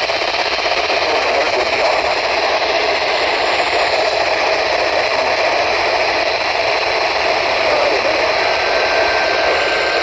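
Steady hiss of radio static from a weather radio receiver, with no clear signal coming through.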